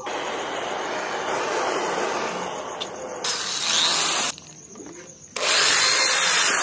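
A gas torch hissing steadily for about three seconds, then an electric drill running in two bursts of about a second each as it bores into a wooden board.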